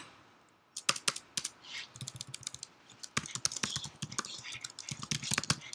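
Typing on a computer keyboard: an uneven, rapid run of key clicks that starts about a second in.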